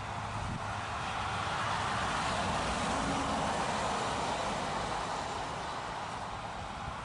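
A passing vehicle: a steady rush that swells to a peak about three seconds in and then fades, over a low rumble.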